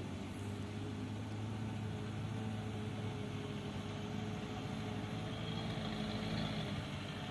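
Engine of heavy road-construction machinery running steadily with an even, low hum.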